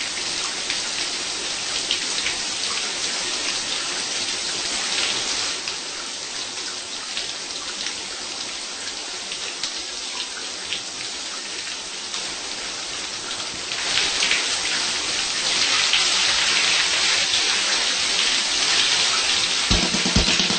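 Shower spray running steadily, water splashing on a body and tiled walls, growing louder about two-thirds of the way through.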